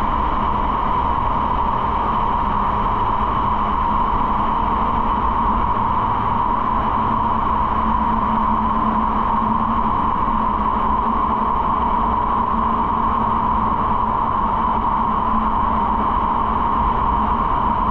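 Motorcycle riding at a steady speed: an even engine note mixed with wind and road rush, holding steady with no revving or gear changes.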